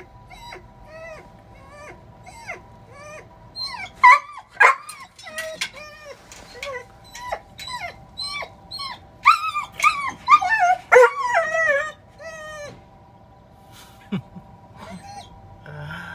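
A Vizsla whining and whimpering at being left home alone: a long run of short, high cries that fall in pitch, about two a second. They grow louder and more urgent about four seconds in and thin out after about twelve seconds.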